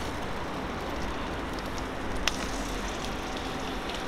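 Marinated chicken wings sizzling steadily as they are laid one by one into a preheated, lightly oiled Lodge cast-iron skillet, with one sharp tick a little over two seconds in.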